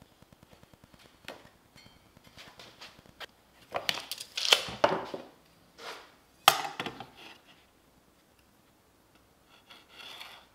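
Pencil marking lines on plywood against a steel combination square, with the square handled and slid on the board. Two louder scraping, knocking stretches come near the middle, and a faint pencil scratch comes near the end.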